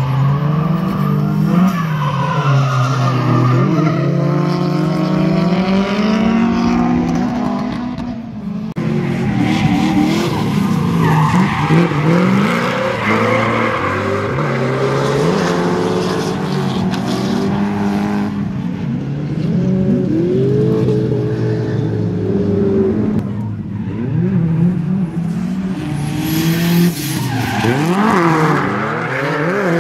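Drift cars sliding through a hairpin, tyres squealing. Several engines are heard at once, revving up and down in pitch again and again, with a short lull about a quarter of the way in.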